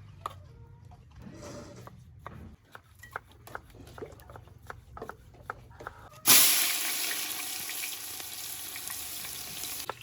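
Light clicks and knocks of stirring in a pot, then, about six seconds in, a sudden loud sizzle of food frying in hot oil that slowly eases and cuts off near the end.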